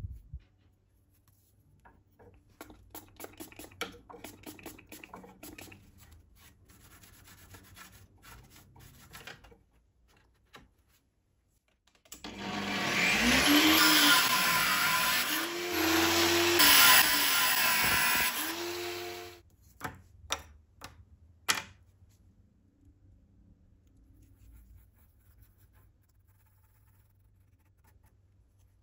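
Angle grinder in a cut-off stand spinning up with a rising whine and cutting a thin rod into rivet pins for about seven seconds, its pitch sagging under the cut, with a short break partway through. Before it, several seconds of scratchy hand rubbing; after it, two sharp clicks.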